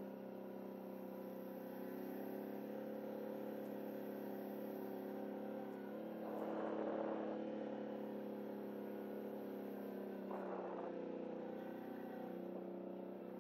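CFMoto ATV engine running steadily at low speed, with a brief louder surge about six seconds in and a shorter one about ten seconds in.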